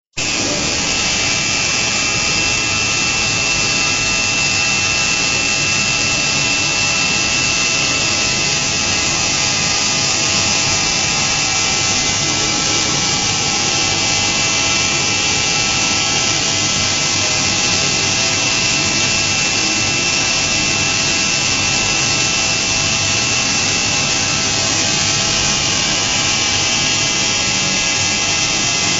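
DMU five-axis CNC milling machine's spindle running with a small end mill cutting a metal workpiece: a steady high whine over a dense cutting hiss.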